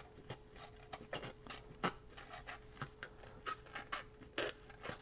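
X-Acto knife blade cutting through the brittle old paper cone of a Zenith M723 radio speaker: a string of irregular short scrapes and clicks.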